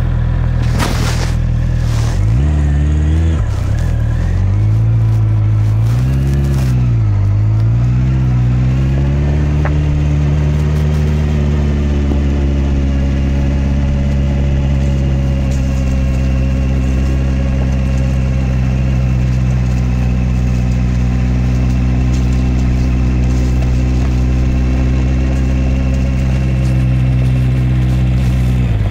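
Honda CB650R's inline-four engine pulling at low speed, its revs rising and falling several times in the first few seconds, then held steady. A few sharp knocks in the first second.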